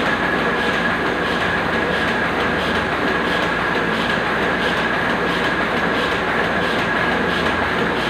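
Machinery running steadily, with an even rhythmic clatter and a thin high whine held throughout.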